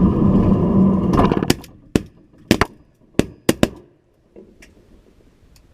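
A loud, buzzy duck call sounds for the first second or so. A ragged volley of about seven shotgun shots from several hunters follows over about two seconds, some in quick pairs, fired at ducks passing overhead.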